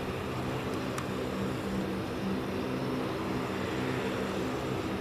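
Boeing 777-300ER's GE90 turbofan engines running steadily: an even rushing noise with several held low tones. A single faint click about a second in.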